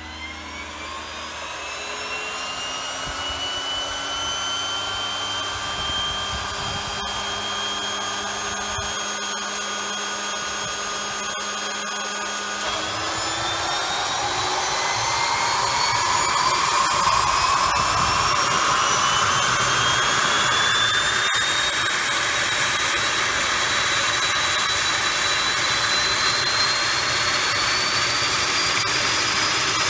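Pratt & Whitney Canada PT6A-28 turboprop starting: a turbine whine that rises in pitch as the engine spools up, holds, then climbs again and grows louder about halfway through as the engine comes up to speed and the propeller turns. This is the first start of the freshly swapped-in engine.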